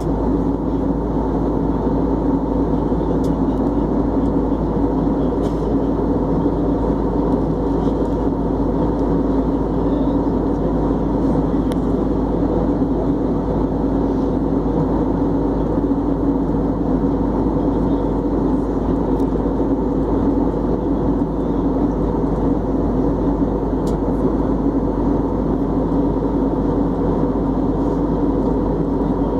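Steady cabin drone of an Airbus A320 in flight: engine and airflow noise heard inside the cabin, with a constant low hum and no change in level.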